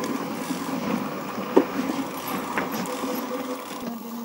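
A small engine idling steadily, with a couple of brief knocks.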